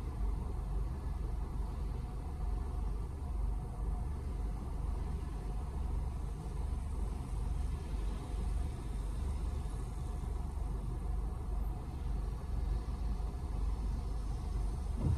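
Car engine idling while stopped, heard from inside the cabin as a steady low rumble.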